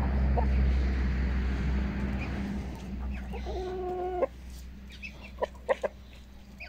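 Chickens clucking, with one drawn-out call of about a second ending abruptly a little past four seconds in, and a few short clucks near the end. A low rumble sits under the first couple of seconds.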